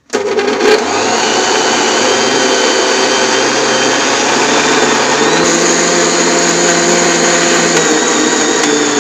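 Electric mixer grinder running at speed, switched on at the start and grinding soaked rice, cooked rice and coconut with coconut water into appam batter. The motor's pitch steps up a little about five seconds in.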